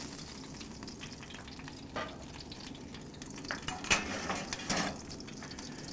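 Hot beef fat, drippings and butter sizzling in the grill's metal drip tray under the steaks, a steady frying hiss, with a few sharp metal clicks about two and four seconds in.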